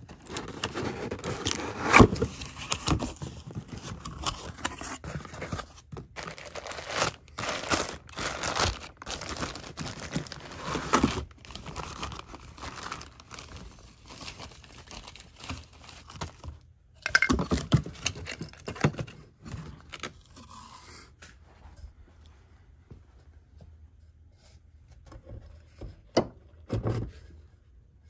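Irregular workshop handling of VW air-cooled engine parts on a workbench: metal knocks, clinks and scrapes with some rustling. The sharpest knock comes about two seconds in, and the handling thins out in the last few seconds.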